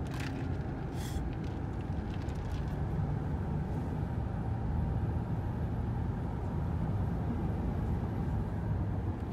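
Steady engine and road noise inside a moving pickup truck's cabin, a low even rumble with two short clicks in the first second.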